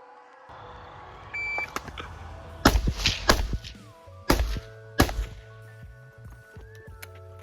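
Background music with a steady tone line, and four sharp gunshots from carbines on an outdoor range, spaced about a second apart in the middle of the stretch.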